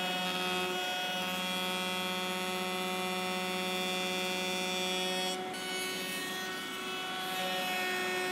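Table-mounted router with a flush trim bit running steadily, a constant motor whine with even hum tones; the tone shifts slightly about five seconds in.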